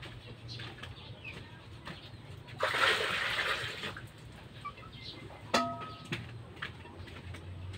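Kitchen work by a wood-fire hearth: a brief rush of water a little under a third of the way in, then a single sharp metallic clink that rings briefly, among small knocks and clicks.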